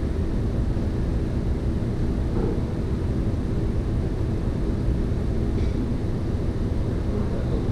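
A steady low rumble of machinery noise with a faint constant hum, unchanging throughout.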